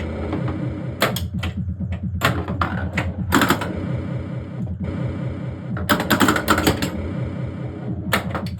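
1979 Williams Gorgar pinball machine in play: clusters of sharp mechanical clacks from flippers, bumpers and solenoids over the machine's continuous electronic sound effects.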